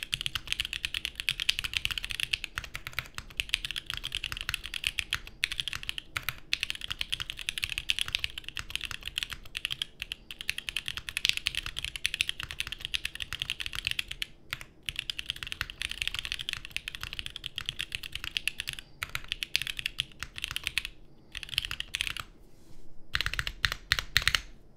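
Continuous fast typing on a plateless Vertex Arc60 mechanical keyboard with SP Star Polaris Grey switches and GMK keycaps: a rapid run of deep key clacks, broken by a couple of short pauses and stopping just before the end.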